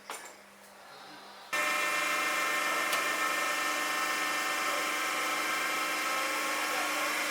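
A motor-driven machine starts abruptly about a second and a half in and runs steadily with a high, even whine.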